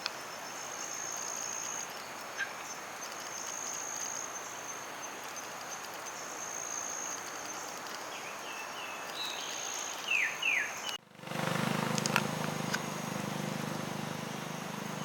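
Forest ambience: a high, thin insect trill that comes and goes, with a few short falling bird chirps about ten seconds in. Near the end the sound cuts abruptly to a different recording with a low hum underneath.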